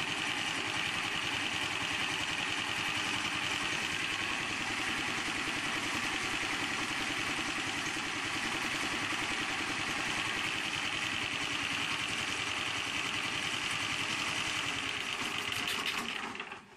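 8 hp Honda gasoline engine running steadily while driving alternators as a load. It cuts out abruptly about 16 seconds in as it runs out of gasoline.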